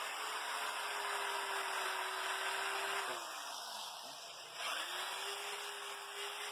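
A small electric motor whining at a steady pitch over a hiss. About three seconds in it winds down and slows, then about a second later it spins back up to the same pitch.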